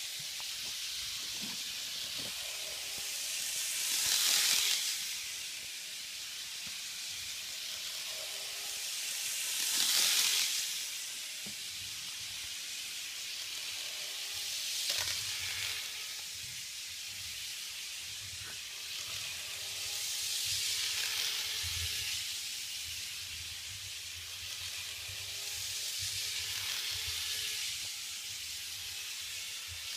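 Model Yokosuka-colour commuter train running laps of a KATO Unitrack N-scale oval: a steady rushing hiss of wheels and motor on the track that swells about every six seconds as the train comes round close. A low hum joins partway through.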